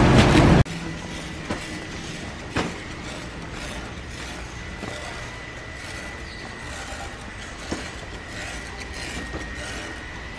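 Metal shopping cart rattling loudly as it rolls, cutting off suddenly after about half a second. Quieter store background noise follows, with a faint steady high whine and a few light knocks.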